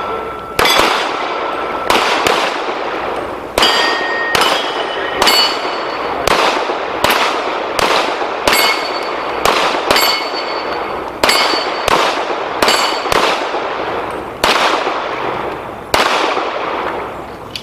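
Pistol shots fired at steel targets, about seventeen in an uneven string, roughly one a second. Many shots are followed by the clear ring of a steel plate being hit.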